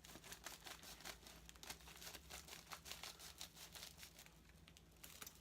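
A mailed package being torn open by gloved hands: faint, rapid, irregular crackling and tearing of its wrapping that thins out near the end.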